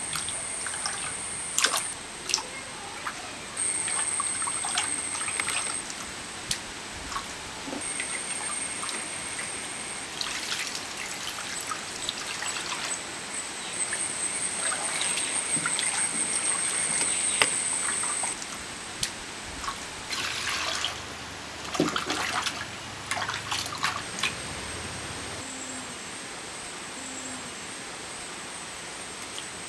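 Water sloshing, splashing and trickling as hands rub and rinse sardines in a clay pot of water, with small irregular splashes and knocks. A thin high whine comes and goes behind it.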